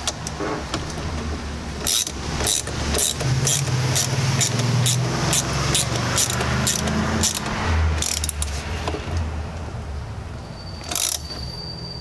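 Craftsman ratchet clicking as it is swung in short strokes to tighten the clamp bolt of a quick-release battery terminal. There are about two to three clicks a second for several seconds, over a low steady hum.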